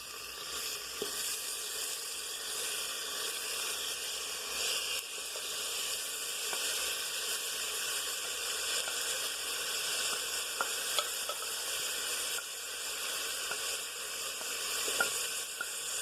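Chopped onion, garlic and freshly added tomato frying in a pan: a steady sizzle, with a few light clicks of a spoon stirring against the pan.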